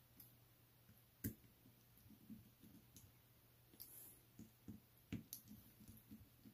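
Faint, scattered clicks and taps of a precision screwdriver on the small steel caseback screws of a wristwatch as they are driven back in. A sharper click comes about a second in and another about five seconds in.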